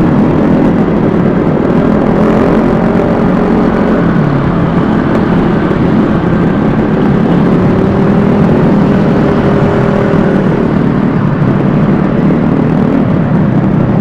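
Vespa S 125 scooter's single-cylinder four-stroke engine running under way, with a steady rush of wind noise over the microphone.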